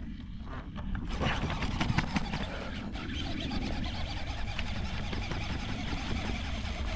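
A baitcasting reel being cranked steadily, winding in a hooked largemouth bass.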